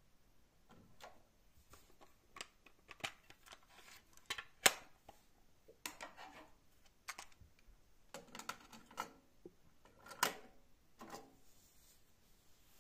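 Irregular mechanical clicks and clacks from a cassette deck being handled and operated, the sharpest about four and a half seconds in, with short rattly clusters of clicks around six, eight to nine and ten seconds in.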